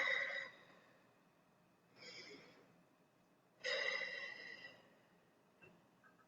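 A person taking slow, deep breaths close to the microphone: one breath trails off at the start, a soft short one comes about two seconds in, and a longer, louder one follows at about three and a half seconds.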